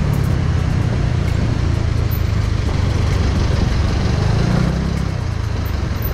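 Riding sound from a 2009 KYMCO Super 8 125 scooter: its single-cylinder four-stroke engine running under a heavy, steady low wind rumble on the camera microphone, amid city traffic. A low hum swells and falls back a little after four seconds in.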